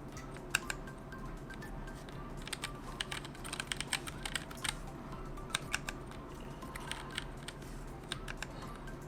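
Key presses on a Womier K66 mechanical keyboard with Gateron Brown switches: sharp clicks, some single and some in quick runs, as the Fn and Control keys are pressed again and again to step through the lighting modes.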